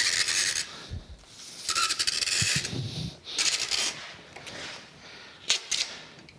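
Clear packing tape pulled off a handheld tape gun dispenser in three rasping pulls of about a second or less each, as it is wrapped around a cardboard box. Near the end there are two sharp clicks.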